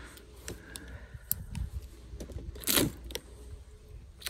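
Cardboard being handled: scattered light clicks and rustles, with one louder brief scrape a little under three seconds in.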